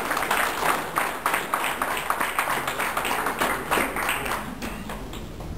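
A few people clapping: quick, irregular claps that thin out and stop about four and a half seconds in.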